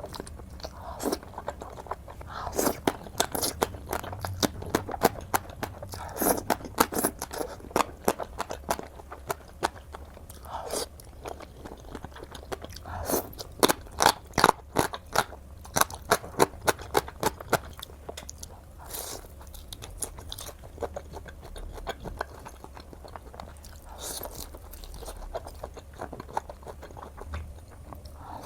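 Close-miked crunchy chewing and biting: a person eating crisp food in runs of rapid crunches, busiest in the middle and thinning out toward the end.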